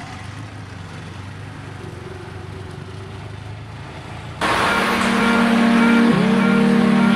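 Auto-rickshaw engine running steadily with a low hum, heard from inside the open cabin. About four and a half seconds in, a much louder, steady mix of rushing noise and humming tones cuts in suddenly.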